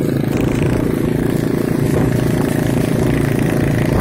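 Yamaha Vega underbone motorcycle's small four-stroke engine running steadily under way, heard from the rider's seat, with road and wind noise from riding a rough, potholed dirt road.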